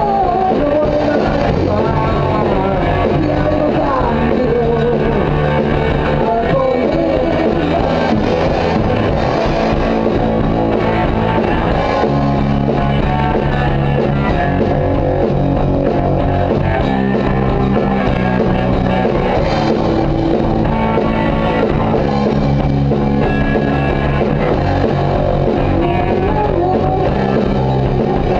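A rock band playing live, with guitar prominent and a voice singing over it in the first few seconds and again near the end.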